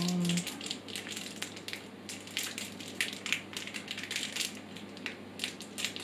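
Small screws handled and turned over in the fingers, making an irregular rustling with many light clicks.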